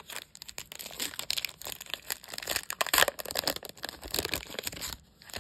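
Foil trading-card pack wrapper being torn open and crinkled by hand: an irregular crackle of crumpling foil that stops about five seconds in.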